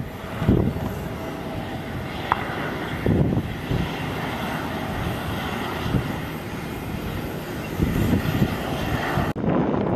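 Steady jet noise from a Boeing 737 airliner's engines as it rolls along the runway, with wind buffeting the microphone in low gusts. The sound changes abruptly near the end.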